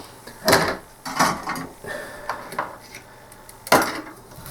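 Small tools and parts knocking and clattering on a workbench as they are handled and set down, with two louder knocks about half a second in and near the end and lighter taps between.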